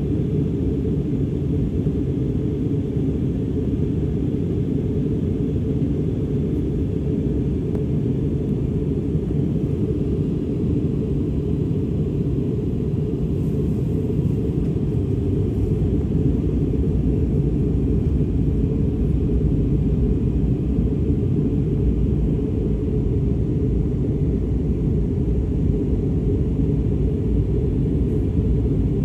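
Steady low rumble of an airliner in flight, heard from inside the passenger cabin: engine and airflow noise.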